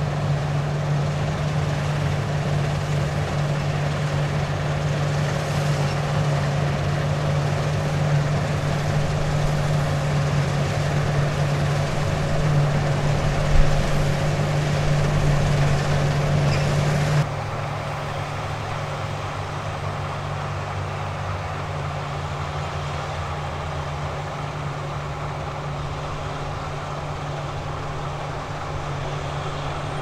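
Massey Ferguson Cerea combine harvester running steadily as it cuts barley: a constant engine drone with a steady hum under it, and a single short knock about halfway through. A few seconds later the sound cuts to a quieter, different steady drone of the combine and a tractor running side by side while it unloads.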